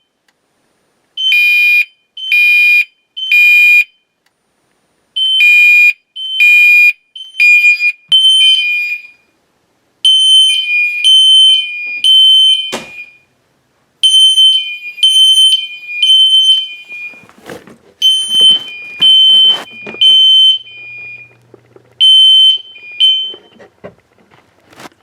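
Two fire alarm horns, a System Sensor P2RL on its 3.3 kHz tone and a Gentex Commander 3 at a lower pitch, sounding the temporal-3 evacuation code: groups of three beeps with a short pause between groups. The two pitches start in step and drift apart partway through, with a few knocks and clatter in the second half. Both horns cut off near the end as the system is silenced.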